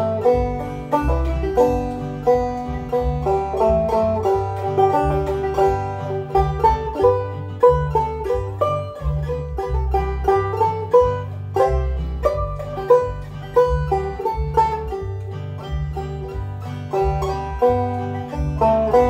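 Deering Clawgrass 2 five-string banjo played clawhammer style in standard open G tuning, a steady run of bright plucked notes carrying a slow melody. Under it runs a computer-generated backing track with a bass line.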